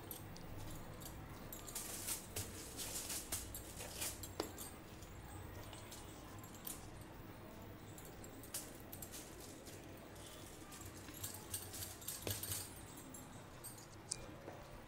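Faint crinkling and crackling of aluminium foil, with soft dough handling, as hands work a lump of biscuit dough on the foil sheet and press it flat. It comes in short spells of crackle with quieter gaps between.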